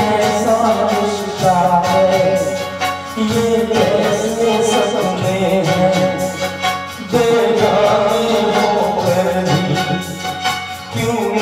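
A man singing a Hindi film song into a handheld microphone over instrumental accompaniment, holding long wavering notes.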